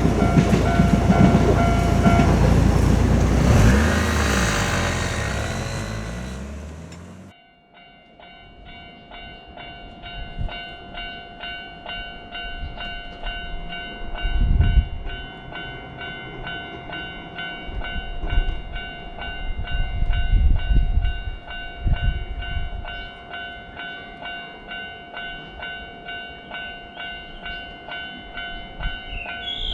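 A train passing close by with a loud rumble that cuts off suddenly about seven seconds in. Then a Japanese level-crossing warning bell rings steadily in its regular "kan-kan" rhythm, with a few low thumps.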